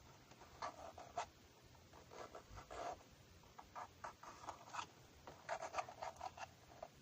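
Soft, irregular rubbing and scratching strokes, a few short strokes at a time, made as ASMR trigger sounds.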